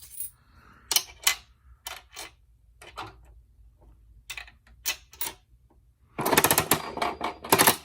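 Crank of a coin-operated bouncy ball vending machine being turned, its mechanism clicking. There are scattered single clicks at first, then a loud, rapid run of ratcheting clicks about six seconds in.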